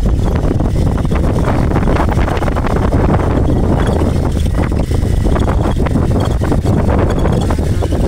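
Loud wind buffeting the microphone: a dense, low rumble that flutters unevenly throughout.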